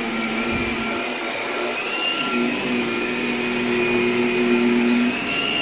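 Vacuum cleaner running steadily with a high motor whine as its floor head is pushed over a shaggy rug and onto a hard floor; the whine shifts slightly in pitch a couple of times.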